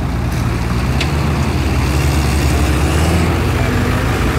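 Off-road vehicle engine running in the mud, revving up about a second in and easing back after about three seconds, with a short sharp click as it starts to rev.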